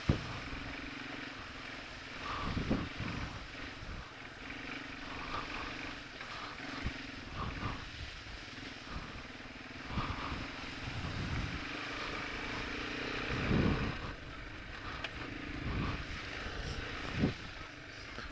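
1989 Yamaha Moto-4 250 ATV's single-cylinder four-stroke engine running steadily under way along a rough, muddy trail, with several louder low thumps from the ride scattered through it.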